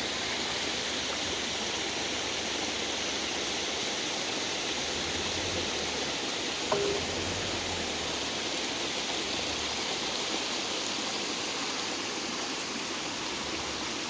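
Spring water running in a steady, even rush. A single short click sounds about halfway through.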